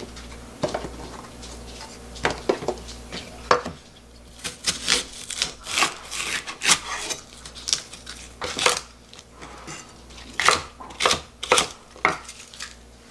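Kitchen knife chopping a Korean green onion into large chunks on a wooden cutting board: irregular sharp knocks of the blade through the stalk onto the board, coming in bunches.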